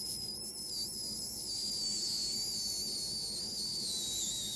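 A long, steady high-pitched whistle with a hiss over it, sliding slowly lower in pitch.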